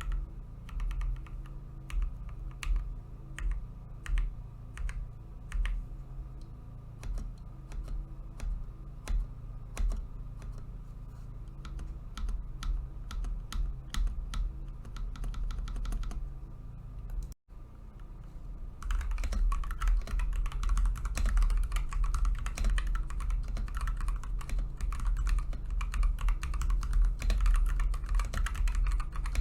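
Higround mechanical keyboard with its stock switches: keys pressed one at a time, single clacks about half a second to a second apart. After a brief break about two-thirds of the way through, fast continuous typing follows.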